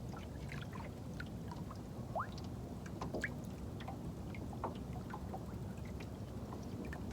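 Water gently trickling, dripping and lapping around a small fishing boat: scattered small drips and bubbly plinks over a low steady rumble.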